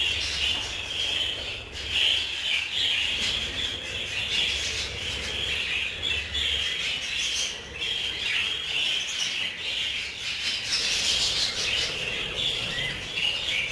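A flock of budgerigars chirping and chattering continuously, many birds at once.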